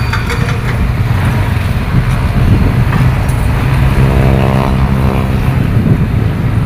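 Diesel engines of heavy construction machinery running, a steady low rumble. About four seconds in, one engine's hum swells for a second or so and fades.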